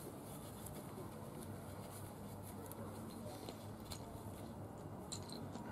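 Quiet outdoor background with a steady low hum, faint rustles and light taps of cord being wound around wooden poles, and a short bird chirp about five seconds in.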